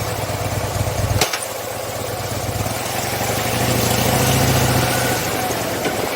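Harley-Davidson Fat Bob's V-twin engine running at idle, with a sharp click a little over a second in. After the click the engine sound dips, then grows louder again and holds through the middle of the stretch.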